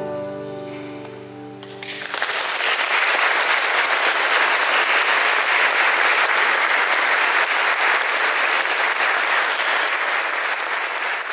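The final held chord of voices and instruments dies away, and about two seconds in an audience breaks into applause that goes on steadily.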